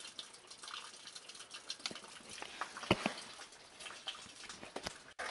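Scuffing and rustling with scattered light clicks and knocks, one sharper knock about three seconds in, as a person crawls out from under a truck with a handheld camera close to the microphone.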